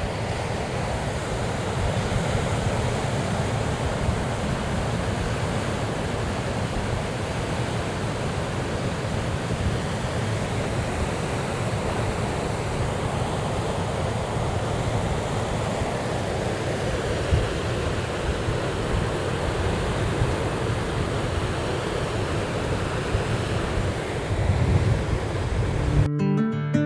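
Sea surf breaking steadily on a beach, mixed with wind rushing over the microphone. About a second before the end it cuts to acoustic guitar music.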